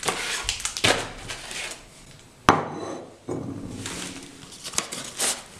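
Ceramic plates and ration packets handled on a wooden table, with a sharp knock about two and a half seconds in as a plate is set down.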